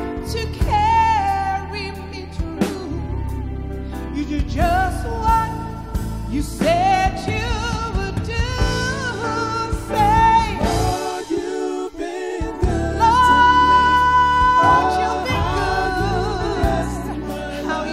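A woman sings a gospel song solo into a microphone, with sliding, ornamented phrases and a long held high note about two-thirds of the way through. A low sustained instrumental accompaniment plays under her and drops out briefly just past the middle.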